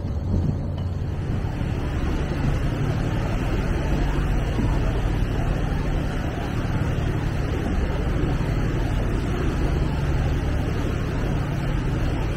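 Steady low drone of a sightseeing ship's engine under way, with an even rushing noise of wind and water over it.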